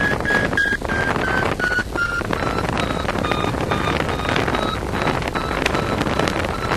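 Paragliding variometer beeping in short, evenly spaced tones, about two to three a second, the pitch sinking over the first few seconds and rising again near the end, over steady wind noise on the microphone. The beeps signal that the glider is climbing in lift, higher pitch for a faster climb.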